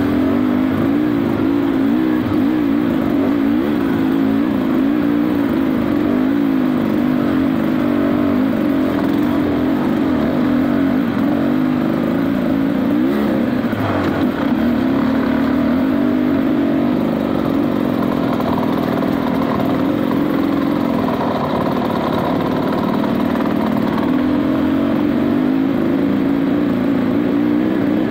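Dirt bike engine running while the bike is ridden, its note wavering up and down with the throttle.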